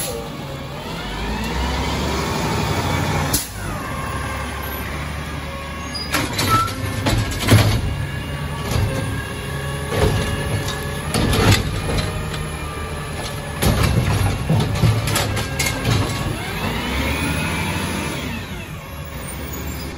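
Peterbilt 320 garbage truck with a Bridgeport Ranger automated side-loader body: the diesel engine revs up and down to drive the hydraulic arm, while the arm clanks and bangs as it lifts a cart, tips it over the hopper and sets it back down. The arm on this older truck is rough, and the knocks come in quick clusters through the middle of the dump.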